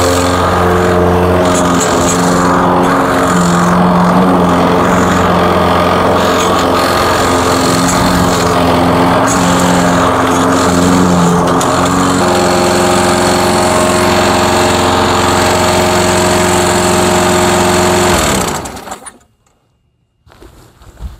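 Walk-behind lawn mower's Briggs & Stratton 550 Series 158cc single-cylinder engine running, cutting grass, smooth now that a badly fouled spark plug has been replaced. Its note wavers at first and settles about twelve seconds in. About eighteen seconds in the engine is shut off and winds down within a second or two.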